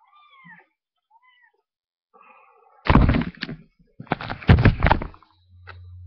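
A domestic cat meowing several times in short calls that fall in pitch. Loud bumps and rustles follow close to the microphone, about three seconds in and again a second later. A low steady hum starts near the end.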